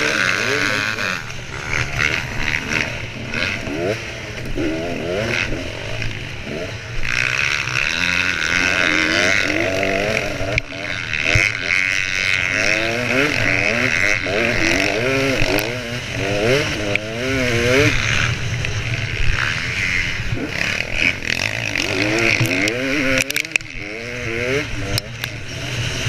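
Dirt bike engine heard from the bike's onboard camera, its pitch climbing and dropping again and again as the rider works the throttle and changes gear on a motocross track.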